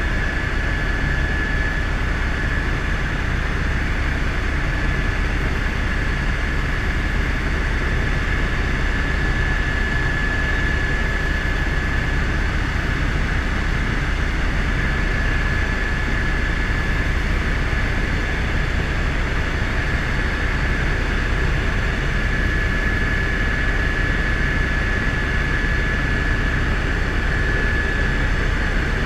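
Helicopter in flight: steady engine and rotor noise with a thin, steady high whine above it.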